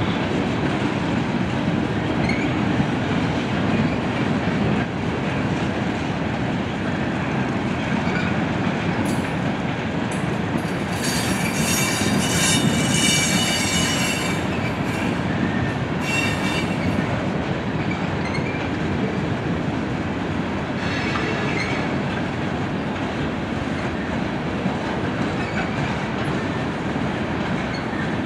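Freight cars of a passing train rolling by: a steady rumble of steel wheels on rail with some clickety-clack. High-pitched wheel squealing rises over it for several seconds about a third of the way in, and briefly again a little later.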